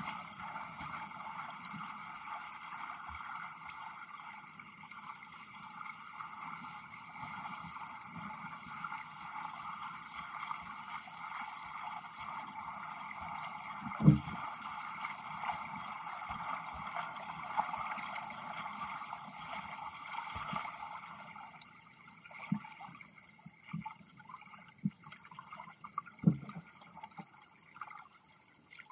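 Muffled underwater noise picked up by a 360 camera sealed in a waterproof dive case: a steady hiss with a few dull knocks, the loudest about 14 seconds in. The hiss fades about 21 seconds in, leaving only scattered knocks.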